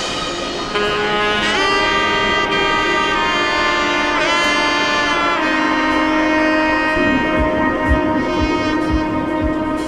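Background music: a held, bending lead melody over a sustained lower note, with soft low beats coming in during the second half.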